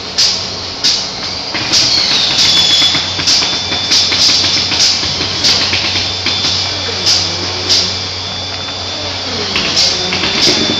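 Factory floor noise: a steady machinery hum with sharp clicks or knocks repeating about every 0.7 seconds, and a high whine that comes in twice.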